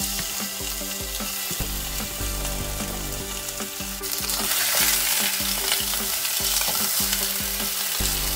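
Mutton pieces sizzling in a hot stainless-steel pan, growing louder about halfway through, with a spatula stirring them.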